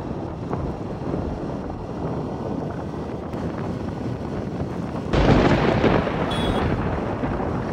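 Wind and rain noise on a motorcycle riding at speed on a wet road: a low, steady rush that gets suddenly louder about five seconds in.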